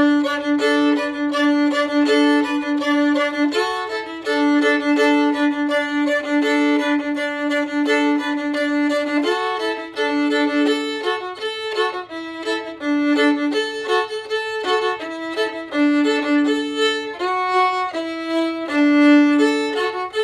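Solo violin playing a fiddle tune at a fast tempo. A low note is held almost throughout, sounding under a quick, changing melody.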